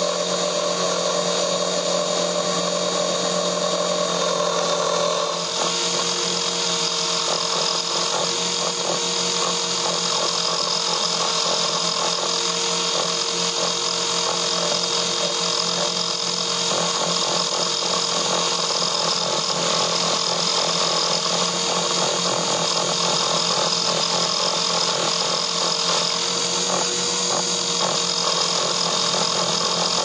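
Electric motor and rotors of an Align T-Rex 450 RC helicopter whining steadily, heard close up from the iPhone mounted on it. The whine shifts about five seconds in and then holds steady.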